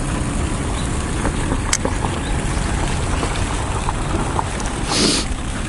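Wind buffeting the microphone: a steady low rumble, with a faint click near two seconds in and a short hiss about five seconds in.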